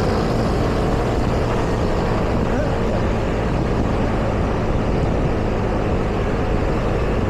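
Steady city street traffic: a continuous rumble of vehicle engines and tyres going by.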